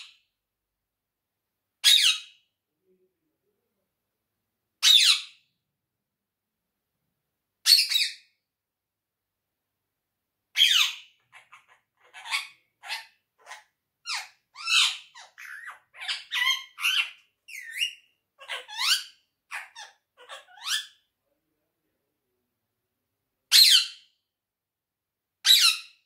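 Indian ringneck parakeet giving loud, shrill squawks. There are single calls about every three seconds, then a run of about ten seconds of quicker, varied chattering calls that rise and fall in pitch. After a short pause come two more single squawks near the end.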